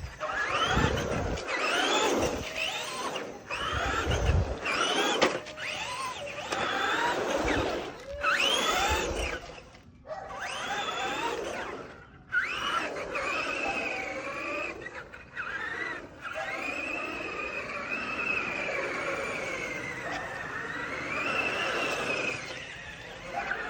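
Radio-controlled car's motor whining, its pitch rising and falling over and over as the throttle is worked, with a few low thumps in the first few seconds.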